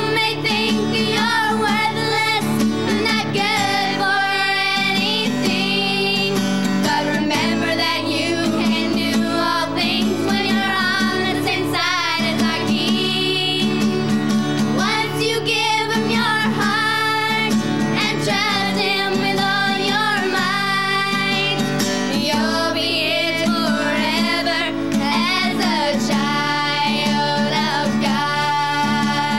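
Young girls singing a song together to a strummed acoustic guitar.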